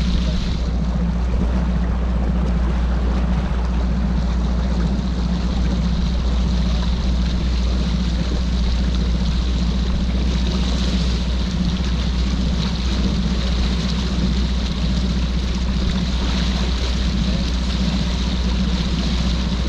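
Bass boat's outboard motor running slowly at a steady low drone, with an even hiss of water and wind over it.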